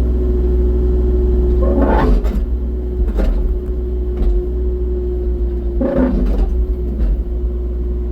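Excavator's diesel engine running steadily with a constant whine over it, and a handful of clunks and scrapes, the two longest about two and six seconds in, as the bucket works at a large rock in the ground.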